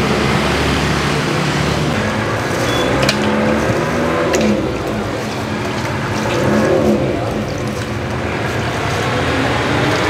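Street traffic noise of motorbike engines running and passing, with indistinct voices of people at the stall. A few sharp clinks, twice in the first half, as the metal ladle knocks the pot.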